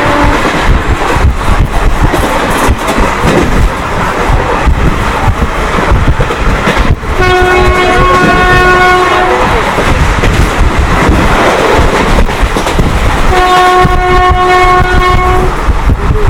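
WAP-4 electric locomotive's horn sounding long blasts of about two seconds each, one about halfway through and one near the end, with the tail of an earlier blast right at the start. Underneath runs the steady rumble and clickety-clack of the express train running at speed.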